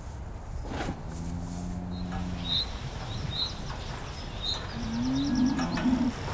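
Cows mooing: one moo about a second in and a longer, louder moo that rises in pitch near the end, with a few small birds chirping in between.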